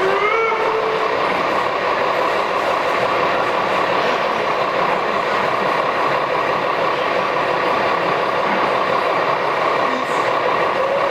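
Gauge 1 model of a German class 50 steam locomotive running slowly, with a steady, even running noise. A short rising tone sounds at the very start, and a fainter steady tone comes in near the end.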